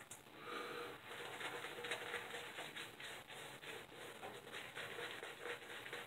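Shaving brush working Proraso shaving-soap lather onto a stubbly cheek and jaw: a soft, quick wet scrubbing.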